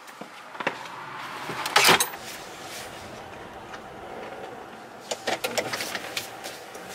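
Steady engine and road noise heard inside a moving car's cabin, with a sharp thump about two seconds in and a run of small clicks and rattles near the end.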